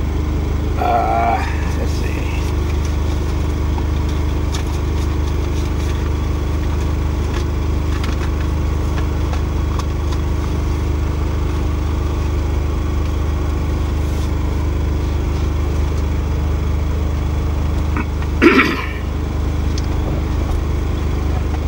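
A steady low engine drone heard from inside a semi-truck cab, with a constant hum, from an idling engine. A few faint knocks come as things are handled.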